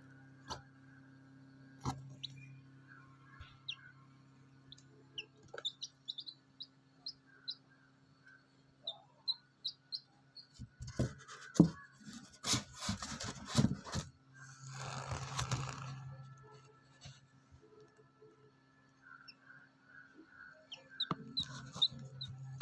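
Chicks peeping in short, scattered high chirps over the steady hum of an incubator's motor or fan. In the middle come a run of sharp knocks and clatter, then a brief rustling, as if something is being handled.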